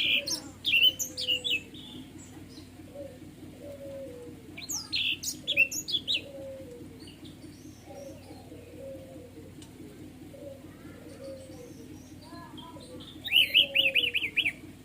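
Orange-headed thrush singing in three bursts of quick, varied high notes: at the start, about five seconds in, and near the end a fast run of about six repeated notes. A softer low note repeats about once a second underneath.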